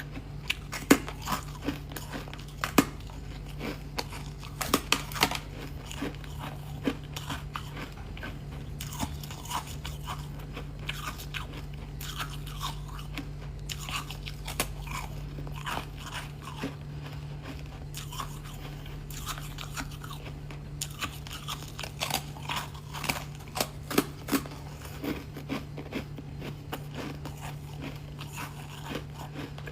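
Close-up crunching of a person biting and chewing thin, brittle foam ice: irregular sharp crunches and crackles, with the loudest bites about a second in, near 3 and 5 seconds, and again around two-thirds of the way through. A steady low hum lies underneath.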